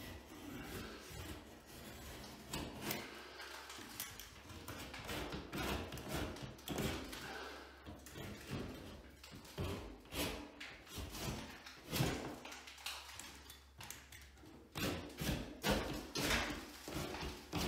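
Utility knife blade scraping through a drywall ceiling along a marked line, in repeated irregular strokes that go over the same cut again and again to get through the board.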